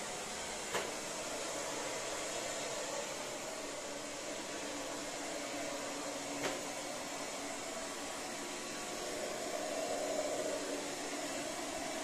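Robot vacuum cleaner running across a laminate floor, a steady whirring of its suction fan and brushes. Two short knocks, one about a second in and one about halfway through.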